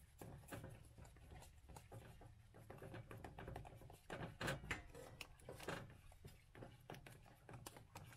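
Spoon stirring instant mashed potatoes in a steel pot: faint, irregular clicks and scrapes over a low steady hum.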